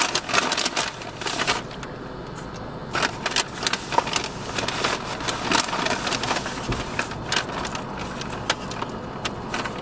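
Irregular rustling and crackling with scattered clicks over a steady low noise.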